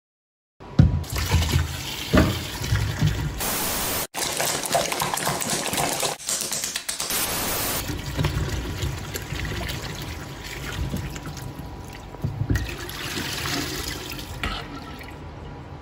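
Kitchen tap running into a stainless steel bowl of cherry tomatoes while a hand swishes them to rinse, starting about half a second in with a few knocks early on. Near the end the water is tipped out of the bowl into a steel sink.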